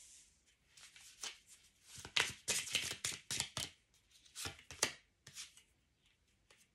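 A deck of oracle cards being shuffled by hand: a run of quick papery flicks and slaps in clusters, loudest near the middle, dying out about five and a half seconds in.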